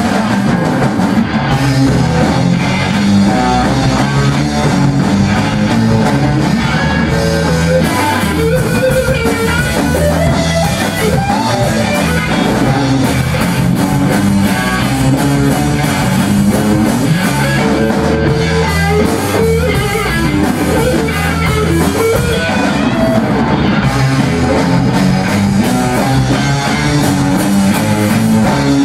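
Blues band playing loud and steady: electric guitars through Marshall amplifiers over a drum kit.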